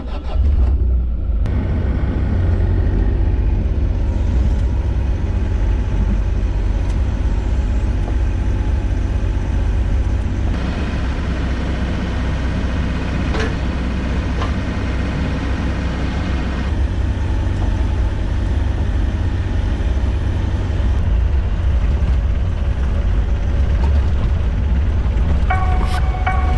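A vehicle engine running steadily under a heavy low rumble, with a few sharp knocks around the middle. Music comes in near the end.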